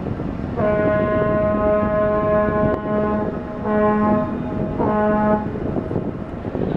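Great Lakes freighter's horn sounding one long blast of nearly three seconds, then two short blasts.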